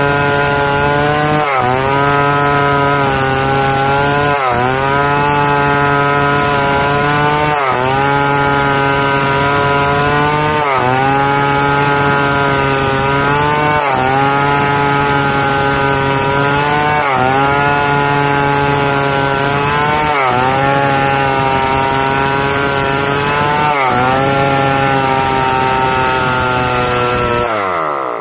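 Stihl 070 two-stroke chainsaw at full throttle ripping lengthwise through a log, its engine note dipping briefly under load and recovering about every three seconds. Near the end the engine note drops and wavers.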